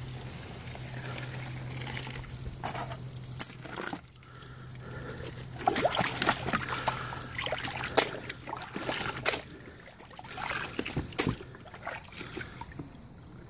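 Muddy water sloshing and trickling in a plastic tub, with irregular splashes, over a low steady hum that fades out about nine seconds in.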